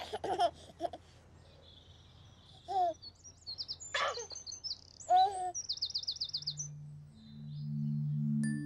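Birds chirping, with a quick high trill about six seconds in and a few short lower calls between the chirps. Soft music with long held low notes swells in near the end.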